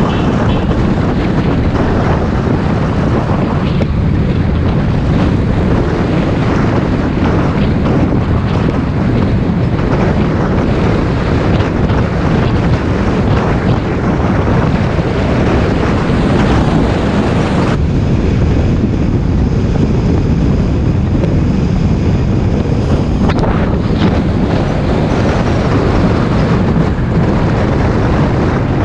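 Wind buffeting the microphone over the steady rumble of a moving bus, with engine and road noise, loud and unbroken.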